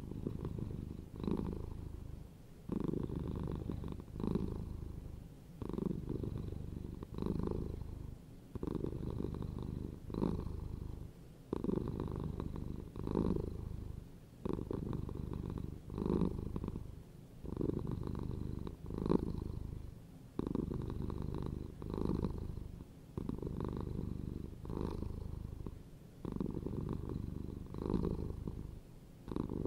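Domestic cats purring close up, a steady low rumble that swells and fades with each breath about every one and a half seconds.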